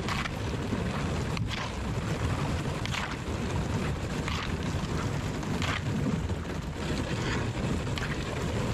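Kayak paddle strokes, the carbon blade dipping and splashing into the canal water about every one and a half seconds, over a steady low wind noise on the microphone.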